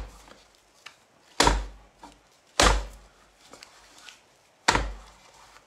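A block of black clay of about 10 pounds slammed down on the plastic bat of a pottery wheel head to round it into shape: three heavy thuds one to two seconds apart, after the fading end of one just before. The clay is cold and stiff.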